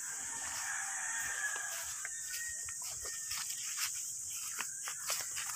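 A rooster crows once, a drawn-out call of about two seconds, over a steady high hiss of insects. Then come sharp crackles of twigs and leaves as someone pushes through brush.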